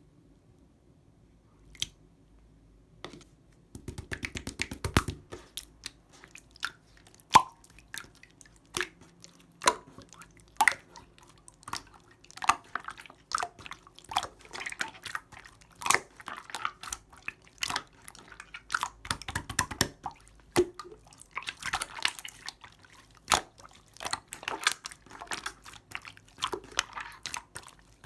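Clear slime being squished and worked by hand, making sticky, wet clicks and pops at an irregular pace. It begins with a few isolated clicks and turns into a dense stream about four seconds in.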